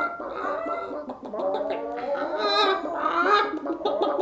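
Several chickens clucking and calling over one another without pause.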